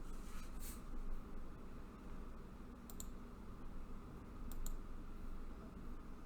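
Faint clicks at a computer over a low, steady background hum, with two quick pairs of sharp clicks about three seconds and four and a half seconds in.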